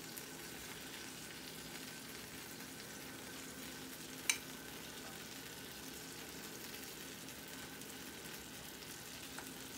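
Buffalo-sauced chicken drumsticks sizzling steadily and quietly on a wire rack in a hot oven as the sauce bakes on. A single sharp click about four seconds in.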